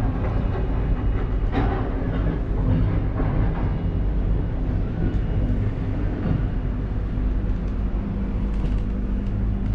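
Ngong Ping 360 cable car gondola travelling along its cable: a steady low rumble with a few light clicks and rattles, the clearest about a second and a half in.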